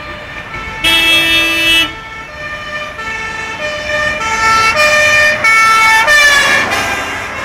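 Fire engine sounding a horn blast about a second in, then its two-tone siren alternating between two notes as it drives past close by, the pitch dropping about six seconds in as it goes by.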